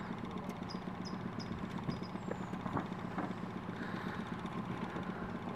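Boat's outboard motor idling, a steady low hum.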